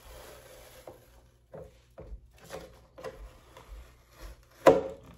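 Light knocks and taps of parts being handled on a work surface, about two a second, then one much louder knock near the end.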